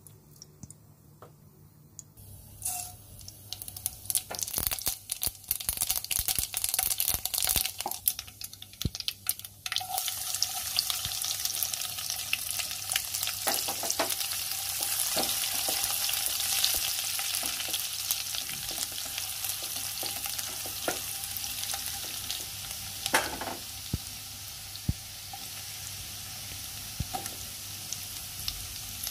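Hot oil in a nonstick kadai, quiet for about two seconds, then crackling and popping irregularly as seeds splutter in it. From about ten seconds in it settles into a steady frying sizzle as crushed garlic cooks, stirred with a silicone spatula, with an occasional knock against the pan.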